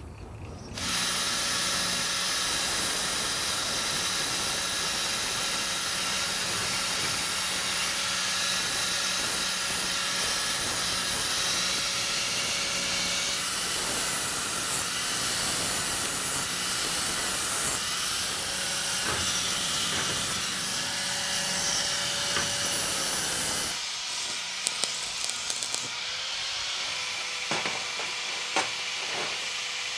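Stick-welding arc crackling and hissing steadily, stopping about three-quarters of the way through. A few short metal clinks follow as the steel pieces are handled.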